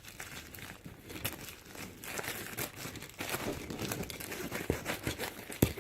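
Package wrapping crinkling and scraping as a hand tool is sawed back and forth against it to cut it open, with a couple of sharp clicks near the end.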